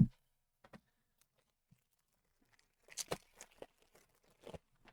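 A sharp tap, then, about three seconds in, the crinkling and tearing of a foil Pokémon booster pack wrapper being ripped open.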